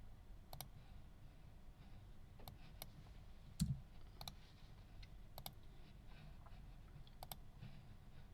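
Faint scattered sharp clicks, several in quick pairs, with one low thump about three and a half seconds in.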